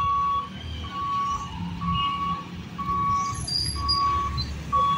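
Electric level-crossing gate warning beeper sounding evenly, about one half-second beep a second, as the lifting barrier goes up, over the low running of motorcycle and scooter engines waiting at the gate.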